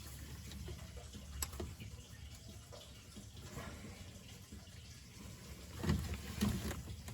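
Motor oil trickling and dripping from the open oil pan drain hole into a drain pan. There is a sharp click about a second and a half in and two louder knocks near the end.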